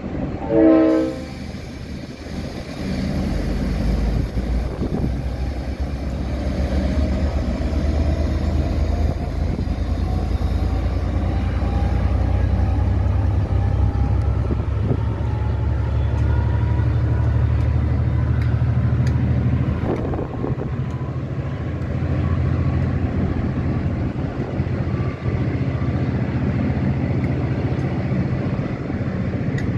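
Brief horn toot about a second in, then a V/Line diesel locomotive's engine running under load with a low steady hum as the loco-hauled passenger train pulls out, with a whine rising in pitch as it picks up speed and the carriages rumbling along the rails.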